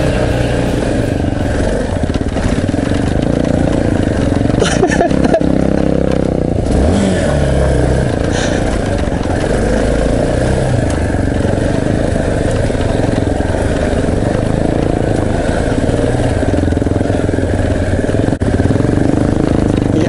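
Off-road motorcycle engine running at low speed on a dirt trail. The revs rise and fall as the throttle is worked, most noticeably around the middle.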